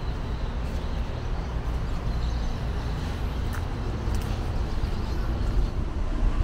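Wind rumbling on a phone's microphone: a steady, low, fluttering rumble.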